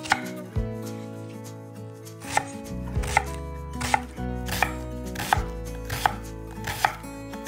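Knife chopping on a cutting board in slow, even single strokes, about three every two seconds.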